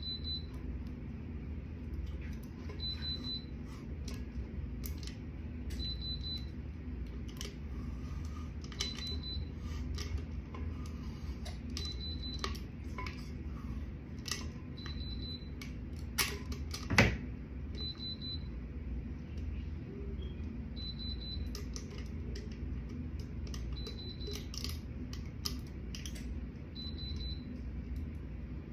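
A heat press's short high beep repeating about every three seconds, the alert that it is hot and ready, over a steady low hum. Light clicks and crinkles of heat tape and sublimation paper being handled come and go, with a sharper click about seventeen seconds in.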